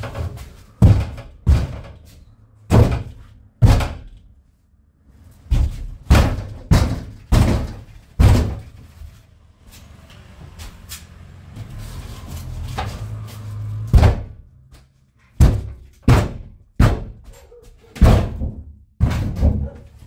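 A metal cab partition in a VW Crafter van being knocked loose: a long series of heavy, irregular bangs and thumps on the panel, with a stretch of duller scraping and rubbing in the middle as it shifts. The partition is still held fast at one point.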